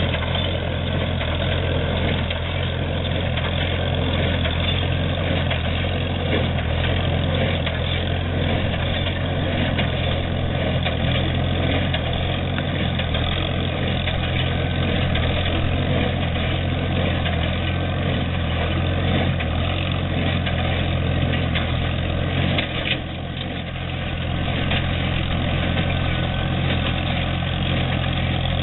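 Tractor engine running steadily while pulling an International 37 square baler through hay, a continuous low drone with mechanical clatter, dipping briefly about two-thirds of the way through.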